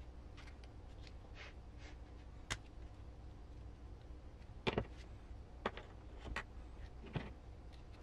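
Small plastic driveshaft parts of an RC crawler clicking and tapping as they are handled and fitted together. There are soft rustles at first, then about six sharp clicks, two of them close together about halfway through.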